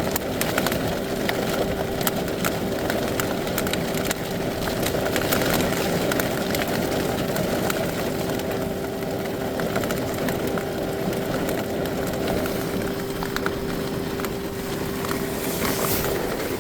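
Rain falling on the roof of a car, a steady hiss with many small drop ticks, heard from inside the vehicle. A steady hum runs under it and stops near the end.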